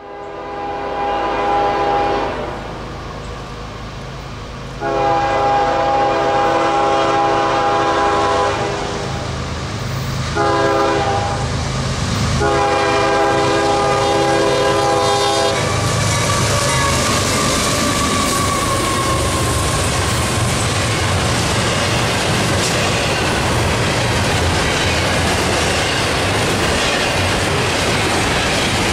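The lead locomotive's Nathan K5HLL five-chime air horn blows the grade-crossing signal: long, long, short, long. From about halfway through, the GE ES44 diesel locomotives and the double-stack intermodal well cars roll past close by with a steady rumble and clickety-clack of wheels over rail joints.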